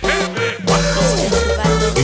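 Cumbia music playing loudly over a steady beat, with a few sliding, falling notes about halfway through.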